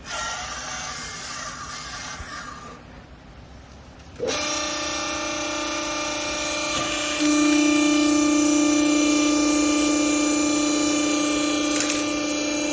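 Vertical hydraulic baling press's pump motor starting suddenly about four seconds in with a steady hum, which steps up louder about three seconds later and then holds steady.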